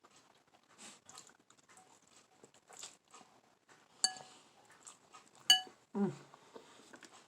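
Someone eating noodles: faint chewing and mouth sounds, with two sharp ringing clinks of an eating utensil against a dish about four and five and a half seconds in, the second the louder. A brief vocal sound follows at about six seconds.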